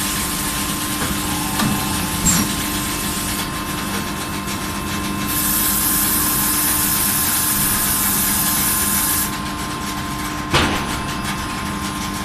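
Steady hum of a forging cell's machinery, with a loud hiss lasting about four seconds midway and a single sharp blow near the end as the die forging hammer strikes the hot billet; a lighter knock sounds about two seconds in.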